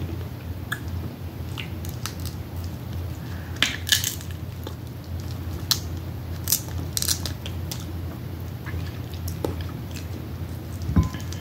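Crab shells cracking in several sharp cracks, the loudest about four seconds in and another near the end, with chewing between them, over a steady low hum.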